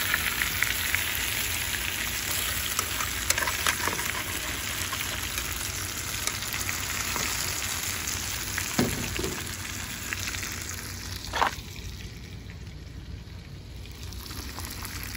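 Curried armored catfish (hassa) sizzling and bubbling in an aluminium pot, with a few light knocks against the pot. The sizzle thins out about twelve seconds in.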